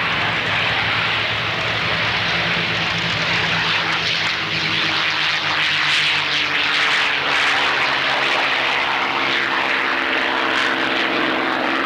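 Two single-engine piston propeller planes taking off together at full power, giving a loud, steady engine and propeller drone. The engine tone moves higher about halfway through as they climb out.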